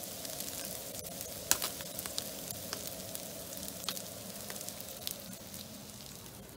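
Hot oil sizzling in a frying pan of freshly fried small fish: a steady hiss with sharp crackles and pops every second or so, slowly dying down.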